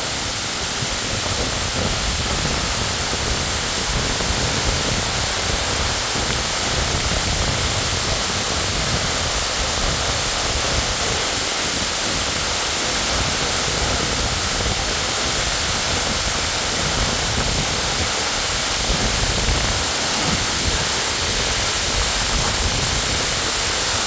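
Waterfall pouring close by: a steady, loud rushing noise. Gusts of wind and spray coming off the falls buffet the microphone with flickering low rumbles.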